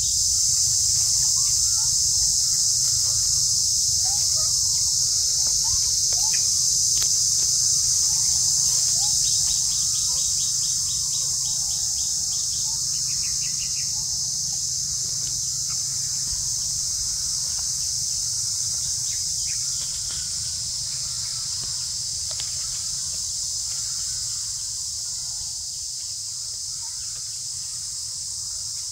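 A steady, shrill chorus of insects that eases off a little in the last third, with faint scattered chirps from birds and a low rumble underneath.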